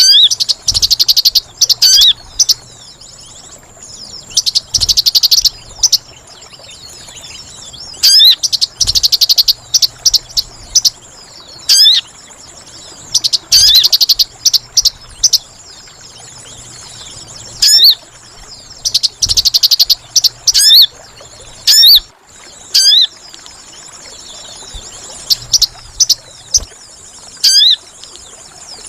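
Sogon bird lure call, a noisy (ribut) mix: loud, rapid high chattering bursts about every five seconds, with single sharp, high call notes repeated in between, over a steady high insect-like hum.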